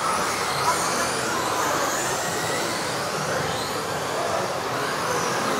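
Several electric RC off-road buggies racing on an indoor track: the high whines of their motors rise and fall as they speed up and brake, over a steady din that echoes around the sports hall.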